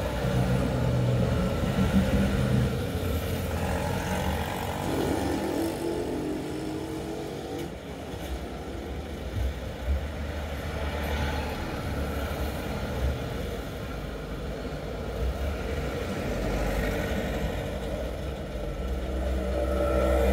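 Passing road traffic: three-wheeler auto-rickshaws, a car and a truck driving by, engine noise swelling as each comes close. It is loudest about two seconds in and again at the end, as a truck and a three-wheeler approach.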